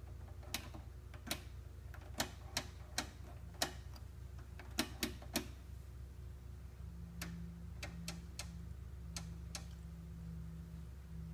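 Irregular sharp clicks from the detented front-panel switches and knobs of a Tektronix 2213A oscilloscope being turned: about nine in the first five seconds, then fainter ones, over a steady low mains hum. A wavering low hum joins about seven seconds in.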